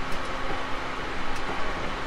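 Steady rumble and hum inside a JR Kyushu 813 series 200 subseries electric train, with a faint steady low tone and no clear rise or fall in pitch.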